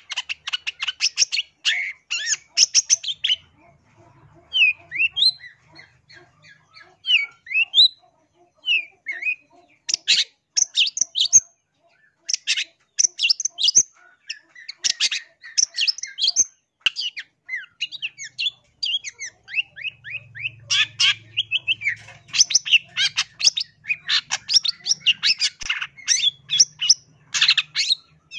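Long-tailed shrike calling: runs of rapid, harsh chattering notes, with a stretch of short, separate upslurred whistles about four to nine seconds in.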